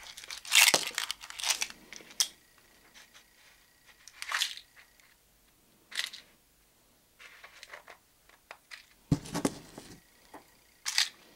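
Intermittent rustling and crinkling as small fishing tackle is handled on a wooden tabletop, with light knocks as pieces are set down and a firmer knock about nine seconds in.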